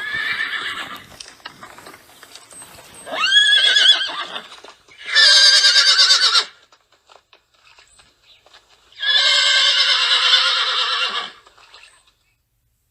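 Horses whinnying: four separate whinnies with pauses between them. The second rises sharply in pitch at its start, and the last, about two seconds long, is the longest.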